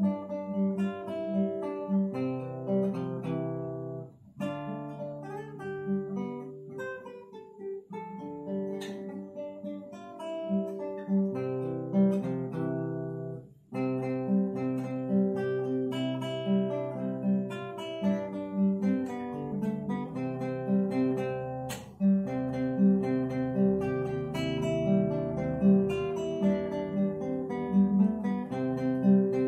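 Solo classical guitar played fingerstyle: a plucked melody over a steadily pulsing repeated accompaniment note, arranged from a Minahasa folk song. The playing breaks off briefly about four seconds in and again about thirteen seconds in.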